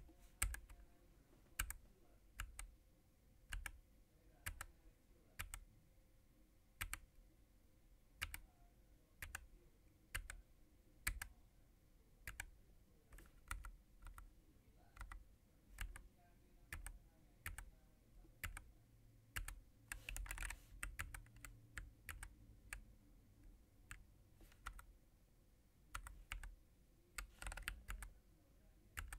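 Keys pressed one at a time on a Nuphy Air96 low-profile keyboard with Gateron 2.0 brown switches and double-shot PBT keycaps, about one press a second, with a few quicker runs of presses about two-thirds of the way through and near the end.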